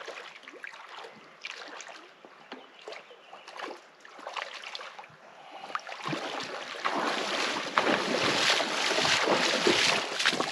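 Wind gusting on the microphone over lapping river water at a rocky bank, the wind picking up and growing louder about six seconds in.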